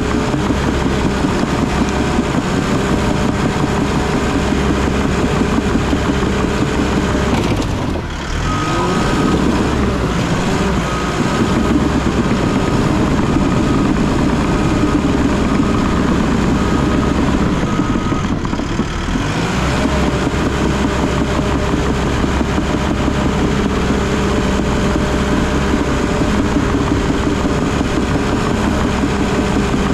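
Diesel engine of a piece of heavy earthmoving equipment running steadily, its pitch shifting as it works. From about a third of the way in, a backup alarm beeps in a broken pattern for roughly ten seconds.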